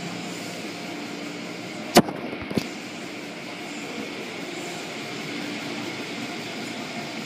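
Automatic car wash heard from inside the car: a steady wash of water spray and brushes working over the body and glass. A sharp knock stands out about two seconds in, with a smaller one just after.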